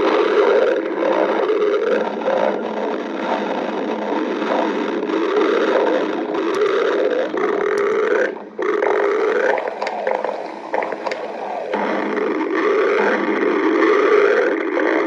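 Stomach growling: a loud, near-continuous gurgling rumble that breaks off briefly a little past the middle.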